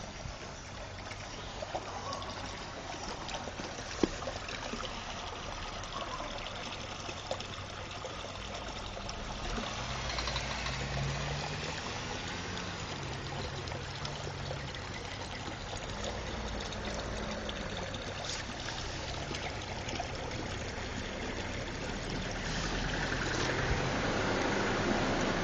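Water running and trickling in a concrete drainage channel, growing louder near the end.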